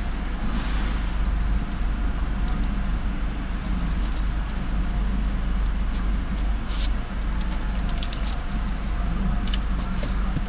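Car idling at a standstill, heard from inside the cabin as a steady low rumble, with traffic passing on the road outside and a few sharp light clicks.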